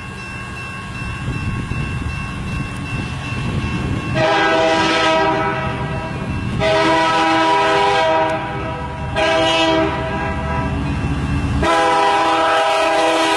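CN diesel freight locomotive's air horn sounding the grade-crossing signal: two long blasts, a short one, then a long one, over the low rumble of the approaching train.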